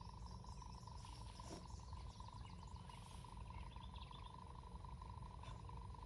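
Faint outdoor pond-side ambience: insects chirping, with a steady droning band and small scattered chirps over a low rumble, and a single light click about five and a half seconds in.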